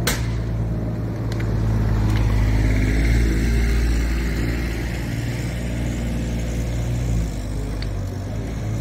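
An engine running steadily at a low idle, with a sharp crack just after the start and a few fainter pops later on.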